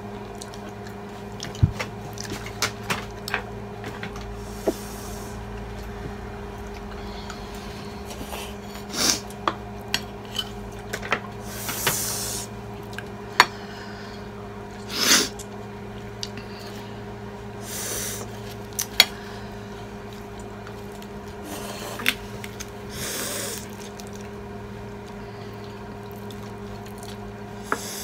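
Eating at a table: spoons and forks clicking on plates, and several short slurps, the loudest about halfway through, over a steady low hum.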